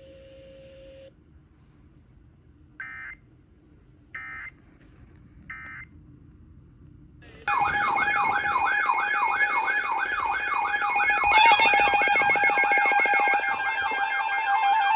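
Three short digital data bursts, each about half a second and about a second and a half apart: the Emergency Alert System (SAME) end-of-message code that closes a weather radio warning. About halfway through, a much louder electronic alarm starts, a tone warbling up and down about three times a second over steady tones.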